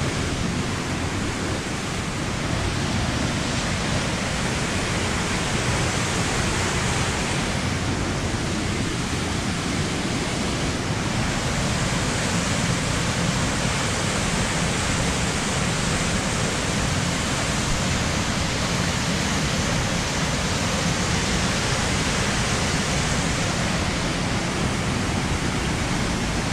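A waterfall's steady rush of falling water, loud and unchanging throughout.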